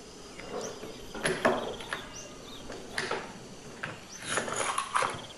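A strip of brad nails is slid into the magazine of a Modern M30F-U electric nailer, making plastic and metal scraping and small clicks. A louder run of rattling and clicks comes near the end as the magazine is pushed shut.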